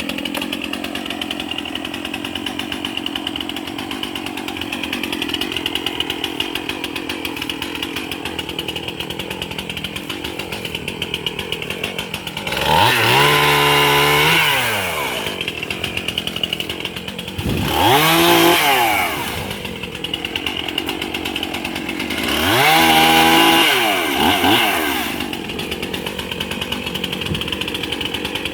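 Two-stroke chainsaw idling, then revved up three times, each time rising in pitch, holding for one to three seconds and dropping back to idle.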